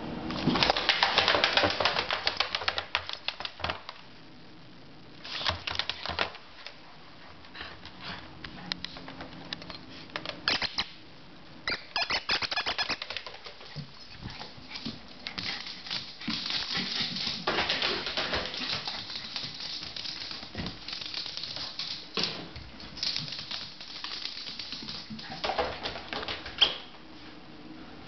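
Cockapoo puppy digging at a mat in a plastic tray with its front paws: rapid scratching and clicking of claws, in bursts that stop and start. A single sharp knock near the end.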